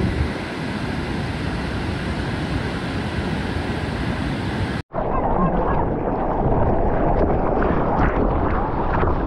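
Wind on the microphone over breaking surf, then an abrupt cut about halfway through to rushing, splashing water close to a waterproof action camera riding through a wave, heard duller and rougher through its housing.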